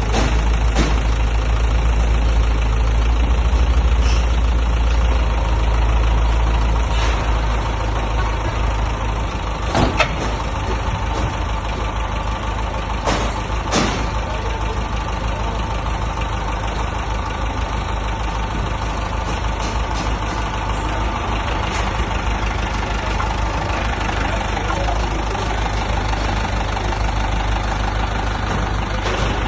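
Heavy construction machine's engine running steadily with a low rumble, with a few sharp clanks, the loudest about ten seconds in.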